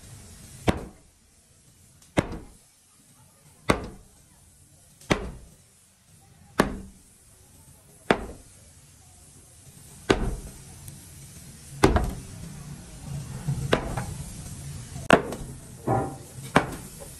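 Heavy blows struck one at a time at an even pace, about one every one and a half seconds, a dozen or so in all. In the last few seconds they are joined by lighter clatter and a low steady hum.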